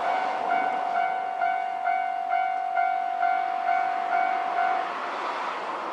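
Japanese level crossing warning bell ringing, a repeated electronic ding about twice a second with the crossing closed for an approaching train. The bell drops away about five seconds in, and a rushing noise swells near the end.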